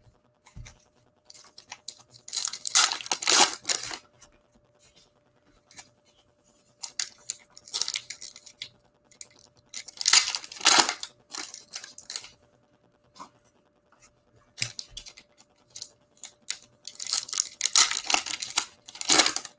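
Foil trading-card pack wrappers torn open and crinkled by hand, in about five bursts of ripping and crackling with short pauses between.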